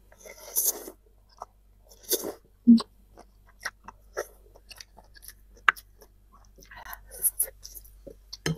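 Close-miked chewing of instant cup noodles: scattered wet mouth clicks and smacks, with a few short hissy bursts, the clearest about half a second in, just after two seconds, and around seven seconds.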